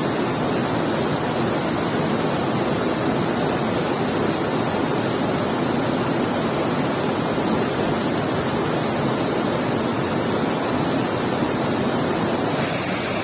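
Waterfall: the steady rush of falling and cascading water, an even noise with no breaks.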